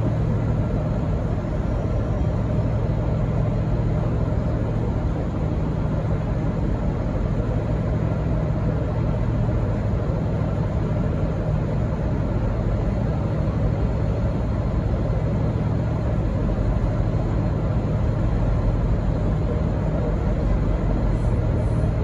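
V/Line N class diesel-electric locomotive idling at a standstill: a steady low engine drone that holds the same pitch and level throughout.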